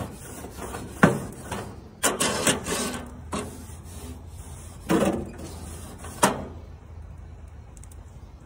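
Several sharp knocks, about a second apart, and a short scraping rub about two seconds in, over a steady low hum.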